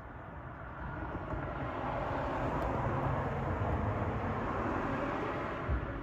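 A vehicle passing by: its noise swells from about a second in, holds, and fades away near the end.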